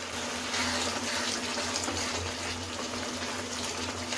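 Thick tomato chutney bubbling and sizzling steadily in a kadai over a high gas flame as it reduces. A wooden spatula starts stirring it near the end.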